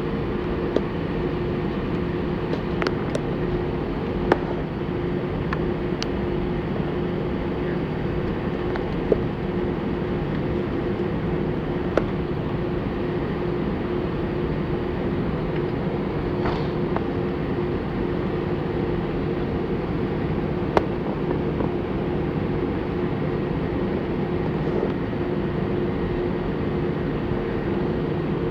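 Steady hum of an Airbus A320 cabin on the ground, with two constant tones and a few sharp clicks and knocks, about four in all.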